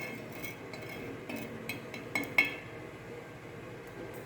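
A metal spoon clinks lightly against a tumbler about five times in the first half, each clink ringing briefly, as hot pan-roasted salt is tipped into warm water. A faint steady fizz runs underneath, the hot salt sizzling as it meets the water.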